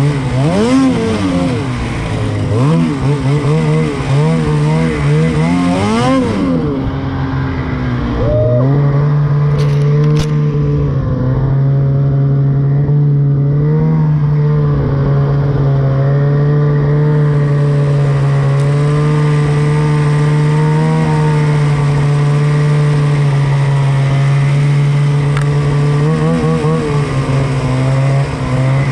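Snowmobile engine revving up and down over and over for the first six seconds or so, then running at a steady speed for the rest, with one brief rev up and back near the end.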